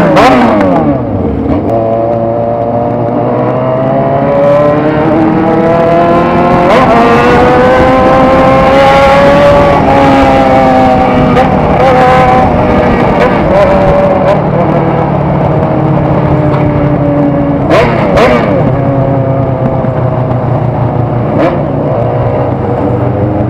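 Motorcycle engine under way with a loud exhaust, revs rising and falling with the throttle: they drop sharply at the start, climb over several seconds, ease off slowly, and climb again near the end.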